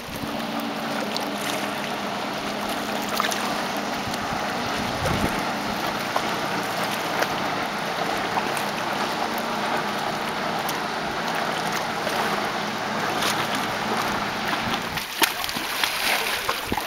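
Distant motorboat engines running steadily as the boats speed across the lake, over small waves lapping against shoreline rocks. The engine hum fades about fifteen seconds in, and near the end a thrown stone splashes into the water.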